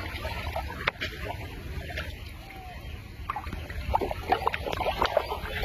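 Water sloshing and splashing over a steady low rumble, with scattered clicks and short sounds that grow busier in the last couple of seconds.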